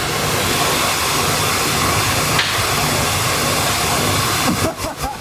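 Steady loud rushing hiss of air blowing up through the glass breakout table, the air cushion that lets a large glass sheet slide freely across it. Near the end the hiss drops away briefly several times.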